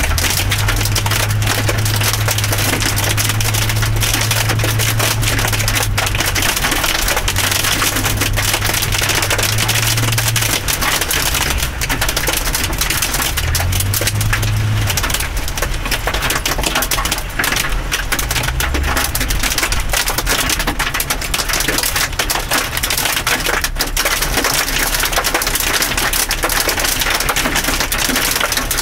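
Hail and rain pelting a car's windshield and roof, heard from inside the cabin as a dense, continuous rattle of small hits. A low hum runs underneath and stops about fifteen seconds in.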